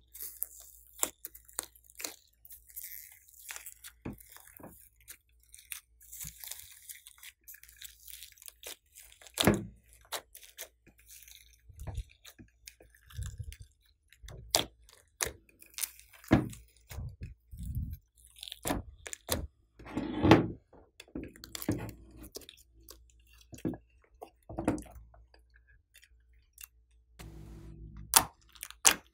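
Hands kneading and squeezing glossy slime packed with foam beads and glitter: an irregular run of sticky clicks, pops and crunchy crackles, with a few louder crackly squeezes.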